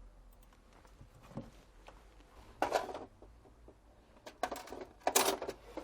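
Faint scattered clicks and a few short scrapes of small objects being handled and set down on a work surface.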